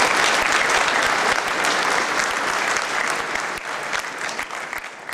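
Audience applauding, a dense patter of many hands clapping that dies away over the last second or two.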